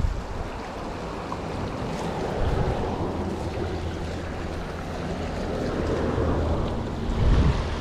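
A river flowing and rushing steadily, with wind buffeting the microphone in low thumps, strongest about seven seconds in.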